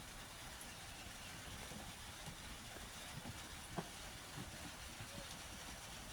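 Faint, steady hiss of rain falling on a roof, with a few light ticks of single drops.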